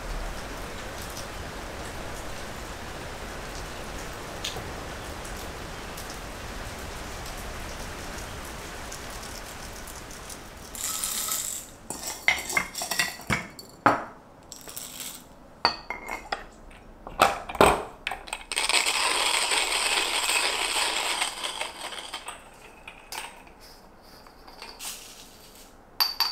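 Steady rain hiss for about the first ten seconds. Then coffee beans are scooped and dropped into a hand coffee grinder with many small clinks and rattles, followed by a few seconds of steady grinding and a few last clicks near the end.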